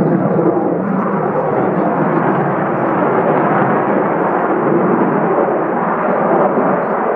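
Boeing F/A-18F Super Hornet's twin General Electric F414 turbofan engines: steady jet noise from the fighter in flight.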